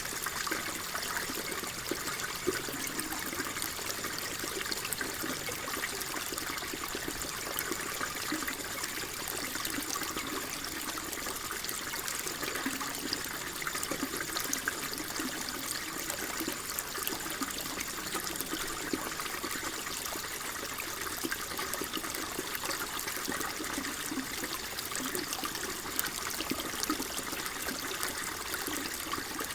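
Shallow flowing water trickling and burbling steadily, with many small splashes and no change in flow.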